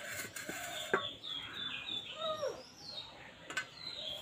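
Birds calling, a run of short high falling chirps and one lower falling call near the middle, over a few light clicks of cut dough pieces scraped off a board onto a steel plate.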